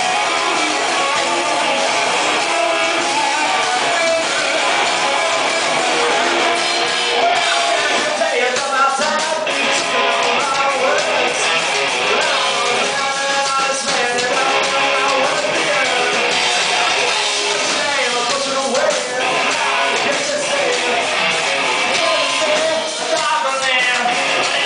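Live rock band playing: electric guitars, drums and a singer, loud and unbroken throughout.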